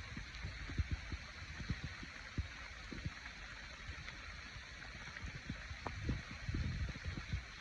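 Steady rush of running water, like a stream, with irregular low thumps over it throughout.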